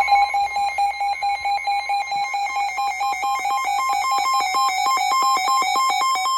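Emergency alert tones from a NOAA Weather Radio severe thunderstorm warning broadcast: a loud electronic alarm made of rapid beeps, about six a second, alternating between two steady pitches.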